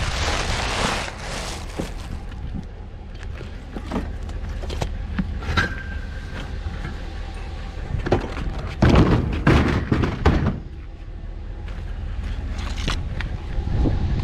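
A discarded dishwasher being handled: scattered knocks, and a cluster of loud clunks and bangs about nine seconds in, over a steady low rumble.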